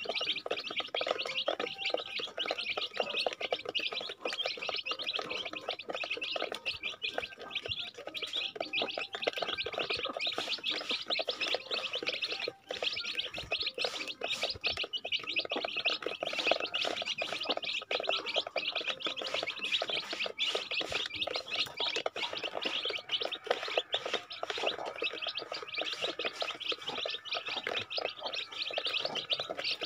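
A brood of young chicks peeping continuously as they feed, with many overlapping high chirps.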